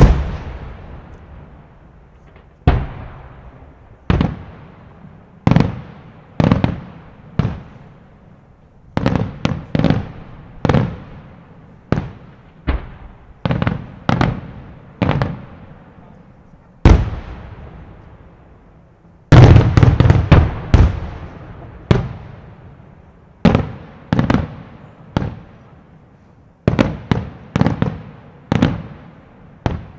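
Aerial firework shells bursting: a string of loud, irregularly spaced booms, each followed by a rolling echo. About two-thirds of the way through, the bursts come in a rapid, denser volley.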